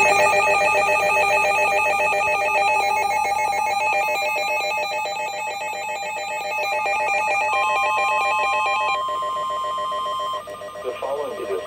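Emergency alert tones for a National Weather Service Special Marine Warning. A fast warbling electronic alarm tone, like a trilling phone ring, sounds for about nine seconds. Near its end it is joined by a steady single tone, the NOAA Weather Radio warning alarm tone, which cuts off about ten seconds in.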